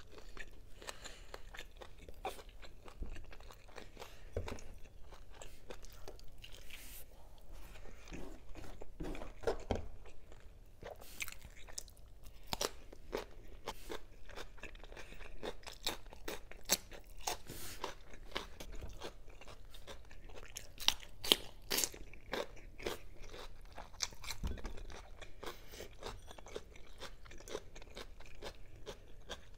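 Close-miked eating: a person chewing pork rib adobo and fresh cucumber slices, with irregular crisp crunches and wet mouth clicks.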